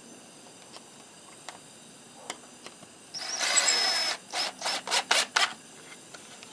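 Cordless drill driving a screw into cedar: about three seconds in the motor runs for roughly a second with a thin high whine, then several short trigger bursts to seat the screw.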